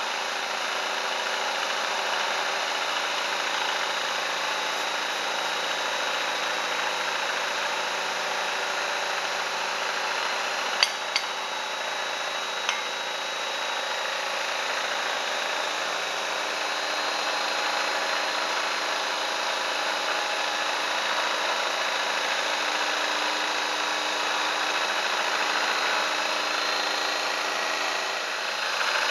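Milling machine running a 2-inch face mill across the top of an aluminium diesel piston: a steady cutting noise over the hum of the VFD-driven spindle motor. A couple of sharp clicks sound about 11 seconds in, and a smaller one a little later.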